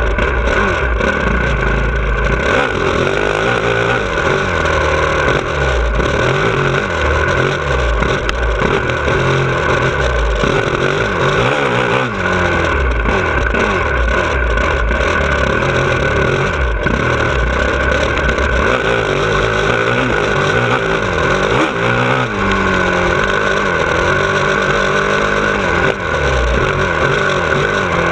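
2017 Honda CRF450R's single-cylinder four-stroke engine, heard from on the bike while riding a motocross track. The revs climb and drop over and over through throttle changes and gear shifts.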